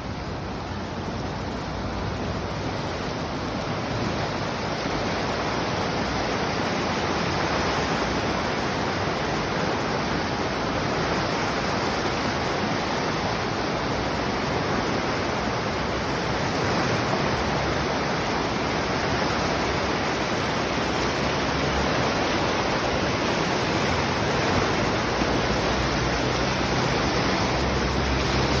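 Water rushing over a spillway: a steady, even roar of falling water that grows a little louder over the first few seconds.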